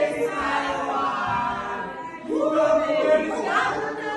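A group of men and women singing together, several voices at once and no instruments, in two phrases with a short break about two seconds in.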